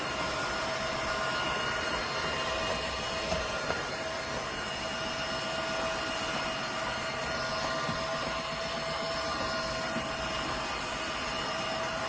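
Dreame G10 Combo cordless wet-dry vacuum running steadily: a constant rush of air with a steady motor whine.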